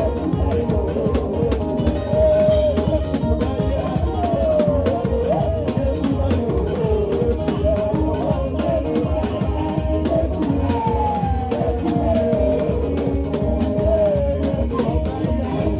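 Live band playing an upbeat Ghanaian gospel praise groove: drum kit with fast, steady cymbal strokes, electric bass underneath, and a lead melody sliding up and down in pitch.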